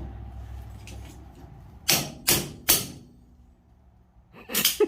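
Metal-on-metal hammer blows on a seized go-kart ball joint that is being knocked out: three quick sharp strikes about two seconds in, and a fourth near the end.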